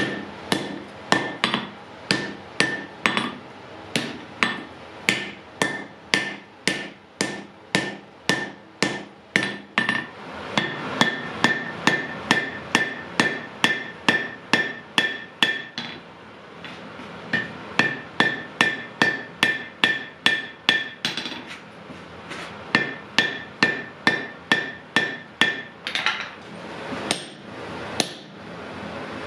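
Blacksmith's hammer striking metal on an anvil while forging wrought iron and steel: a steady series of blows, about two to two and a half a second, in runs broken by short pauses. Many blows ring with a clear metallic tone.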